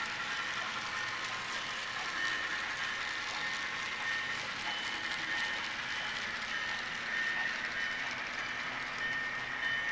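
HO-scale model freight train rolling along the track: a steady whir of small metal wheels on the rails, with a thin steady high whine running through it.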